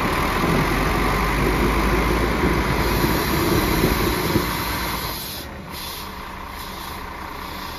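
Mercedes-Benz Axor 3240 truck's diesel engine running loudly, then dropping to a quieter idle about five seconds in.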